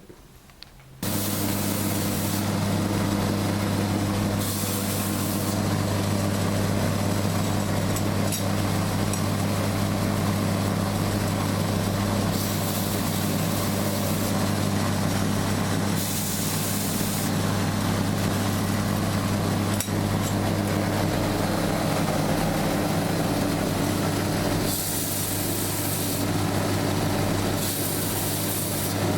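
KMG-style belt grinder starting up about a second in and then running steadily, with a constant motor hum and belt hiss. Several stretches of louder high hiss come and go.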